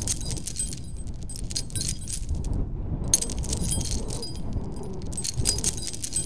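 Metallic jangling and clinking, in two runs with a short break about two and a half seconds in, over a low rumble.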